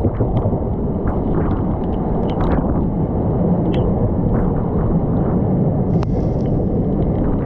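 Heavy wind buffeting on the microphone, held out of a moving suburban electric train, over the train's running rumble, with scattered sharp ticks.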